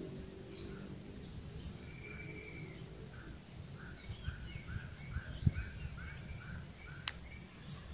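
Outdoor background with birds chirping, a steady high-pitched whine and a low rumble. In the middle comes a run of short calls about three a second, and there is a single sharp click near the end.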